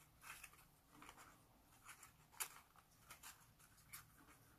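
Faint rustling and soft crinkles of folded colour paper as origami pieces are pushed and fitted together by hand, in irregular small bursts, the clearest about halfway through.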